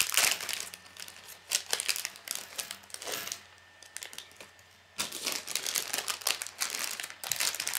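Thin plastic Lego parts bag crinkling and tearing open, with small hard plastic Lego Technic track links clicking and clattering out of it onto a wooden table. The sound drops to a lull a little past the middle, then the crinkling and clicking start up again.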